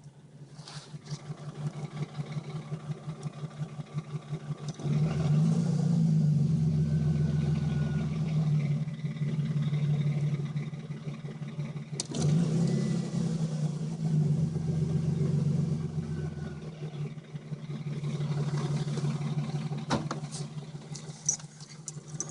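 Dodge Intrepid's V6 engine running with a fast rhythmic ticking, revved up twice for several seconds each time; the owner takes the noise for a noisy timing chain.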